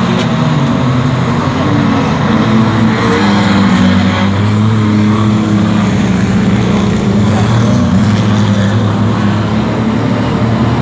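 Several racing stockcar engines running hard together in a heat, a loud, steady mix of overlapping engine notes as the cars lap and pass.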